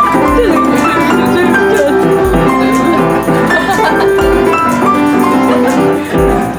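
Background music: layered melodic notes over a deep bass pulse that comes about every two seconds.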